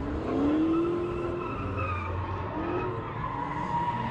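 A car driven hard: a pitched note that rises and then holds for about a second, followed by two shorter swoops.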